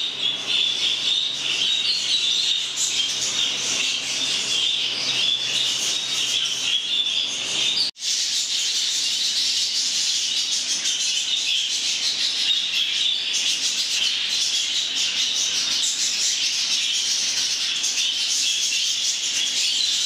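A colony of budgerigars chattering and chirping in a dense, continuous warble. The sound cuts out for an instant about eight seconds in.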